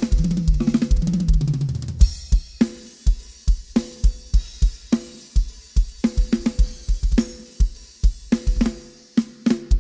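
Acoustic drum kit played during a sound check. It opens with a tom fill stepping down in pitch over the first two seconds, then settles into a steady beat of bass drum and snare under ringing cymbals and hi-hat.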